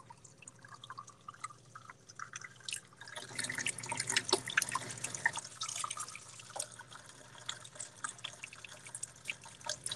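Kitchen faucet running a thin stream of water into a small plastic cup, with light spattering and dripping. The patter grows busier about three seconds in.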